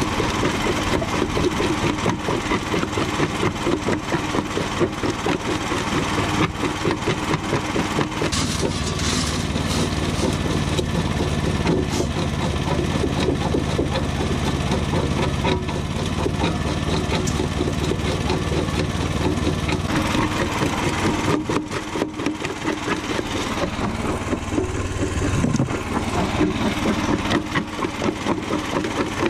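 Homemade jaw crusher running and crushing chunks of concrete: a steady motor drone under rapid, uneven crunching and grinding of concrete between the jaws. A deeper steady hum joins from about eight seconds in and drops away near twenty-five seconds.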